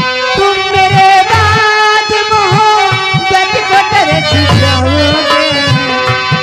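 Live Indian folk stage music: a harmonium holds sustained reedy chords while a dholak beats out a rhythm under them. A singer's voice carries a long, wavering line over the accompaniment.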